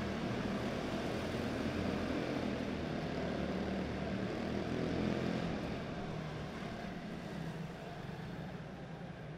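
Quarter midget race cars' small single-cylinder Honda engines running together as they lap a dirt oval, a steady buzzing drone that grows fainter over the last few seconds.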